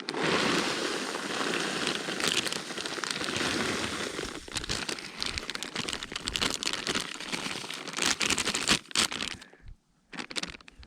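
Continuous crinkling and rustling with many small crackles, dying away about a second before the end.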